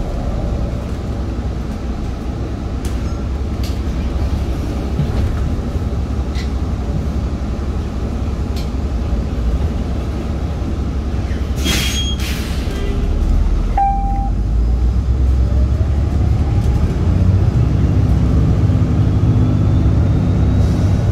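Transit bus running, heard from inside the cabin as a steady low rumble. About twelve seconds in there is a short hiss of air, then the engine grows louder with a faint rising whine as the bus speeds up.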